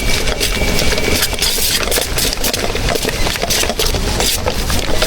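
Steady low mechanical hum under a dense run of irregular clicks and clatter.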